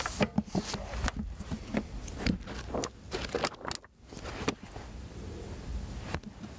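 A paperback book being slid off a shelf and handled: quick scrapes, rustles and paper flicks as it is pulled out and its pages are opened, busiest in the first four seconds or so, then quieter.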